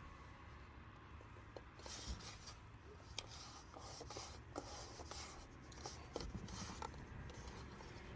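Faint rubbing and scraping with scattered light clicks: hands working plastic shield parts with adhesive pads into place.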